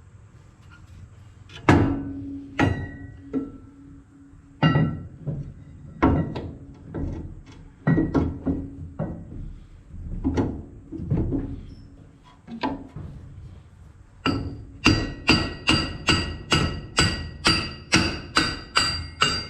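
Hammer striking steel parts being fitted on a John Deere 444 corn head: scattered knocks and clanks at first, then from about two-thirds of the way in a steady run of ringing blows, about two a second.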